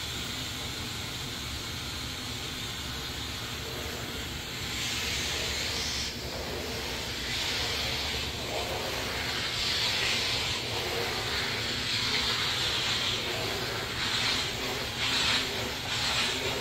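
Steam cleaner hissing steadily as its cloth-covered floor nozzle is pushed back and forth over tile and grout. The hiss swells and dips with the strokes from about five seconds in.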